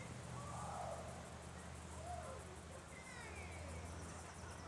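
Birds calling in short rising chirps, with a fast ticking trill near the end, over a steady low hum.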